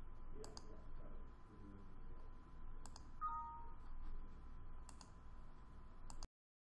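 Four sharp computer mouse clicks about two seconds apart over faint room hum, with a short falling two-tone chime about three seconds in. The sound cuts out suddenly near the end.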